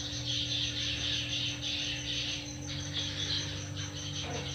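Insects chirping in a rapid, even pulse, over a low steady hum.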